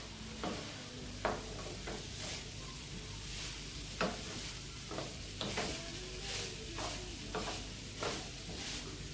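Fried rice being stir-fried in a nonstick frying pan: a wooden spatula scrapes and knocks against the pan every second or so over a steady sizzle as the rice toasts.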